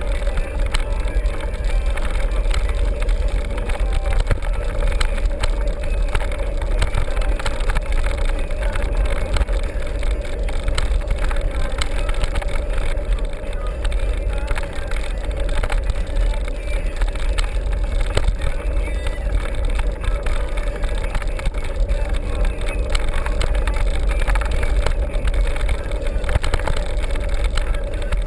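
Steady rumble of travel with heavy low wind noise on the microphone, unbroken throughout.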